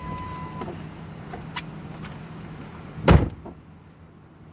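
A car's electronic warning chime sounds once and stops just after the start, then a car door is slammed shut about three seconds in, over a steady low hum.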